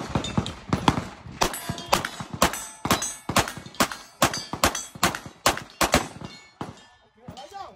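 A CZ pistol firing a long string of rapid shots, several a second, that stops about six seconds in.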